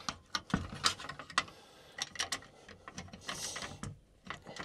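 Irregular small clicks and knocks of a well pump's start and run capacitors being handled and pushed back into place in the control box.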